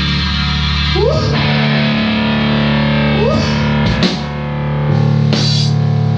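Rock music: distorted electric guitar holding chords, with upward slides about one and three seconds in, over a drum kit, with cymbal hits around four and five seconds in.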